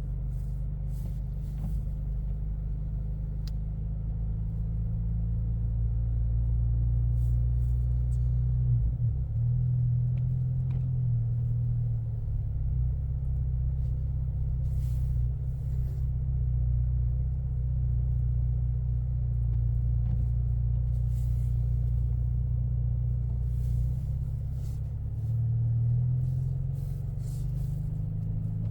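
Inside the cabin of a 2024 Mustang EcoBoost, its turbocharged four-cylinder engine and tyres make a steady low rumble as the car drives slowly through deep, unplowed snow. The engine note shifts about nine seconds in and again near the end, and brief clicks and knocks come through here and there.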